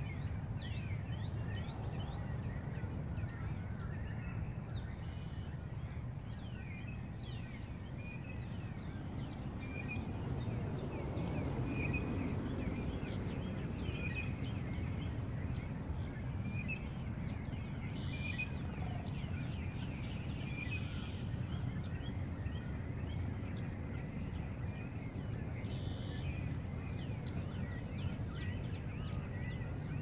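Many birds calling together, a busy mix of short chirps and quick downward-sliding notes, over a steady low rumble that swells for a few seconds about ten seconds in.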